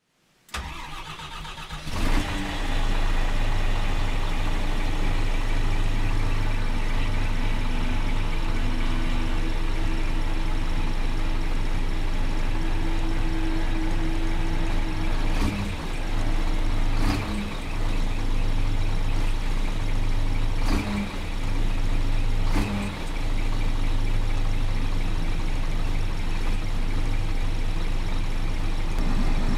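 Scania Omniexpress coach's diesel engine starting up about two seconds in, then idling steadily. A few short sharp sounds come midway.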